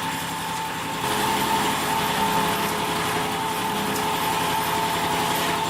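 A small engine or motor running steadily with a droning hum, getting louder about a second in.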